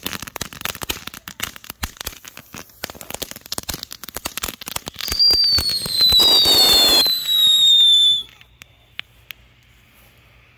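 Firework fountain (Grand Patriot Unicorn Fountain) crackling with rapid pops, then about five seconds in two overlapping whistles that start loud and fall slowly in pitch over a hiss. The whistling cuts off about eight seconds in, and a couple of faint pops follow as it burns out.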